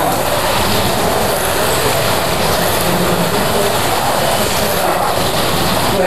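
Carrera Digital 1/32 scale slot cars racing around the plastic track, their small electric motors and tyres running in the slots as a steady, loud noise.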